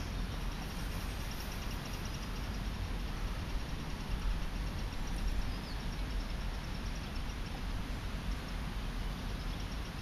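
Steady outdoor background noise with a low rumble, and a few faint knocks and crackles around the middle as small sticks are fed into the smoking metal fire base of a Ghillie kettle.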